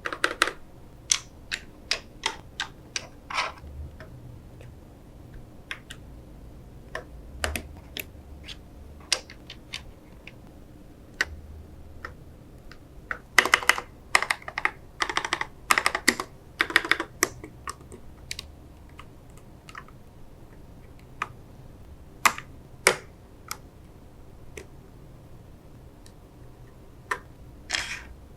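Mechanical keyboard with KTT Mint linear switches clacking: scattered, uneven clicks, with a quick flurry of them about halfway through.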